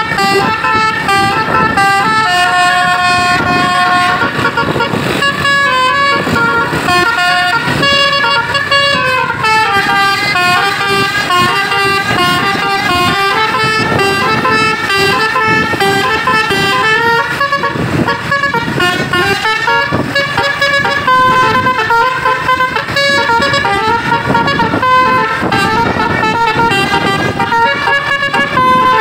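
Tour bus 'telolet basuri' multi-tone musical horn playing a long, loud melody of quick stepped notes, with bus engine and road noise underneath.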